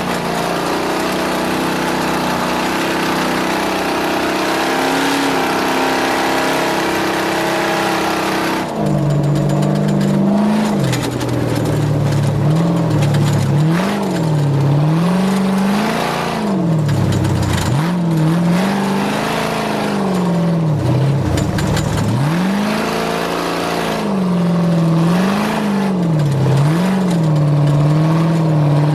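Off-road race vehicle's engine at speed. For the first nine seconds it holds a fairly steady high note under a loud rushing noise. Then the noise drops and the revs swing up and down every second or two as the throttle is worked on and off.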